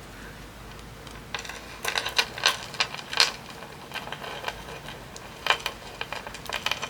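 Small metal charms and clasps clinking and clicking against one another as they are handled and hooked together, in an irregular run of light clicks that starts about a second in.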